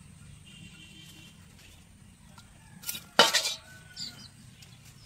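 A small knife working on a land snail's shell, with a brief loud metallic clatter about three seconds in and a smaller knock about a second later.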